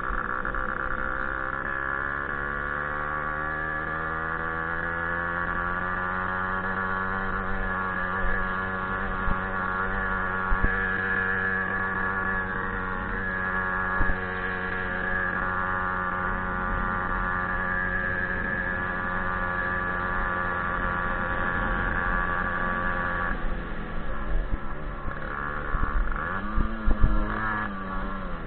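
Small two-stroke moped engine, a Jawa 50 'pařez' single, running hard under load: its pitch climbs over the first few seconds, then holds steady. Near the end the note drops and wavers as the revs change, with a few short knocks.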